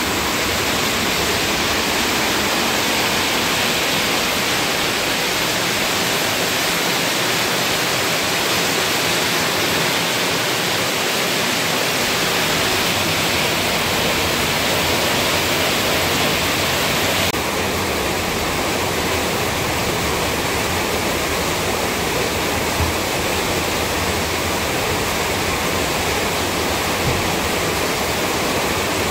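Heavy rain falling, a loud steady rush, with a slight shift in tone about two-thirds of the way through.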